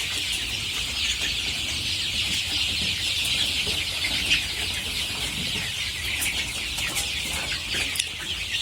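A coop full of chickens chattering: many overlapping high peeps and clucks in a steady din, over a low hum.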